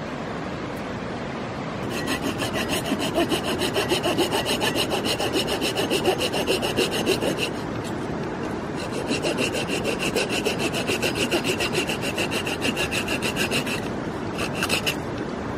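A hand saw cutting firewood in quick, even back-and-forth strokes, in two runs of about five seconds with a short pause between and a brief last few strokes near the end. Under it is the steady rush of a river.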